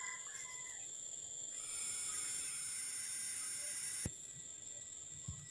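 Faint background with a steady high-pitched insect whine, like crickets or cicadas, that stops abruptly with a click about four seconds in; a soft thump near the end.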